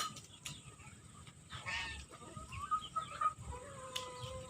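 Chicken calling: runs of short, repeated high calls, with a harsher, rougher call about two seconds in. A steady held tone sounds in the last second.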